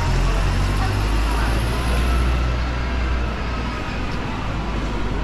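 Road traffic on a busy city street: a heavy vehicle's low engine rumble, which eases off a little past halfway, under pedestrians' chatter.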